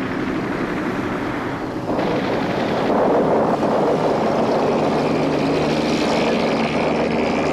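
A steady engine drone under a thick hiss of noise, with a faint rising whine near the end.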